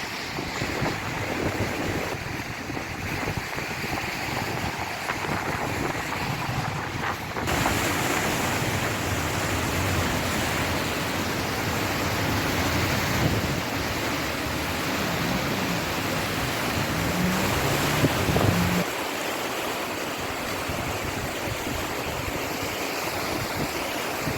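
Floodwater of a swollen river rushing steadily, with wind buffeting the microphone. The sound changes abruptly about seven seconds in and again around nineteen seconds.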